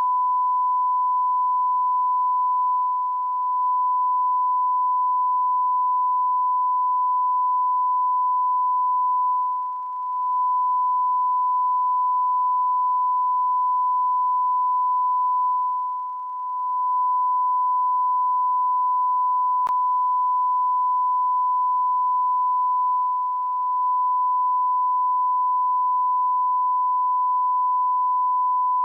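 A continuous electronic beep: one pure, steady high-pitched tone held without a break, with a few brief slight dips in loudness.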